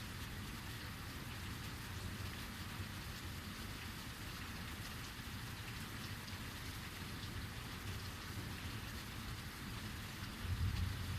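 Steady heavy rain falling and pattering on surfaces. Near the end a low rumble of thunder starts to build.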